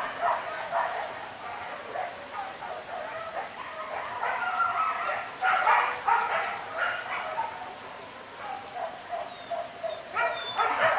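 A pack of hunting dogs barking and yelping over and over as they chase a wild boar, with several dogs calling at once.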